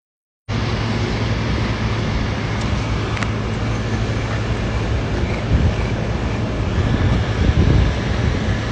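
Steady low rumble of vehicle noise with a deep hum, cutting in abruptly about half a second in.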